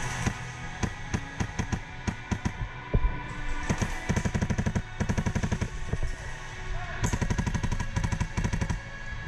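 Airsoft rifle firing, likely a PolarStar high-pressure-air gun: scattered single shots at first, then long rapid-fire bursts about three and a half seconds in and again near the end. Background music plays underneath.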